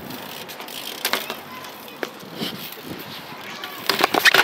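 BMX bike riding on a concrete skatepark: tyres rolling with a few scattered clicks, then a cluster of loud sharp knocks near the end as the bike comes down from a hop on the ramp.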